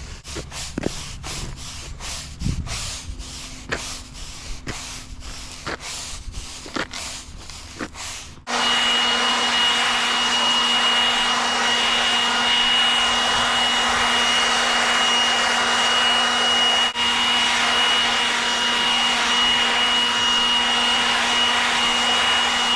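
For the first eight seconds or so, a run of short sharp scrapes or knocks. Then a battery-powered leaf blower switches on and runs at a steady high speed: a loud, even rush of air with a steady high whine.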